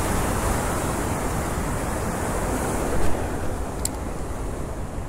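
Wind buffeting the microphone with a low rumble over a steady hiss, and one short sharp click about four seconds in.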